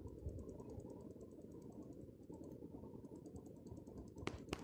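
Faint handling sounds of fingers pressing a moist spice paste into slit small eggplants, with two sharp clicks about a quarter second apart near the end.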